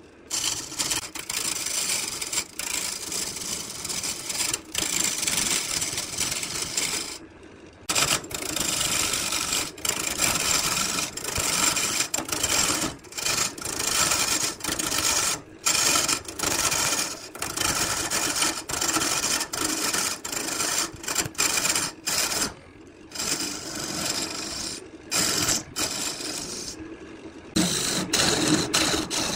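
Turning chisel cutting a spinning wood blank on a lathe: a continuous rasping, shearing hiss of wood being peeled away, broken by many brief drops where the cut pauses.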